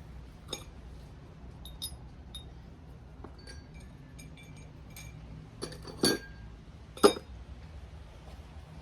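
Loose metal press rings and tools clinking and ringing against each other as they are picked through, with two louder clunks about six and seven seconds in.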